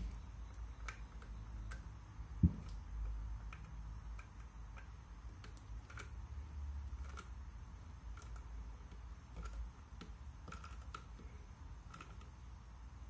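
Screwdriver driving the butt plate screws into a wooden shotgun stock: faint, irregular ticks about once or twice a second, with one sharp knock about two and a half seconds in.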